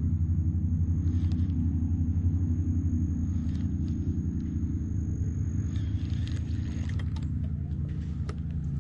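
A steady low motor-like rumble with a thin, steady high whine that stops about seven seconds in, and a few light clicks near the end.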